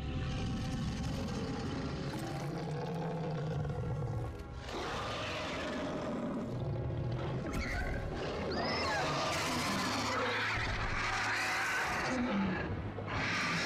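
A dragon's long, deep roars (film sound effects) over the film's score music, growing louder and fuller in the second half.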